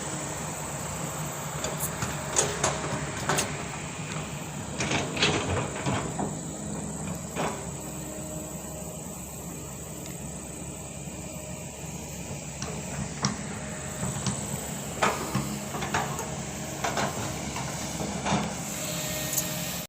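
Heavy earthmoving machine's diesel engine running steadily, with repeated sharp metallic clanks and knocks, in clusters a few seconds apart.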